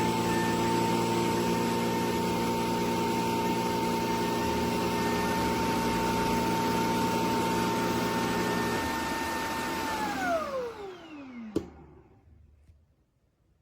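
Shark robot vacuum's suction motor running with a steady whine. About ten seconds in, the whine falls in pitch as the motor spins down and stops, with a single click as it dies away.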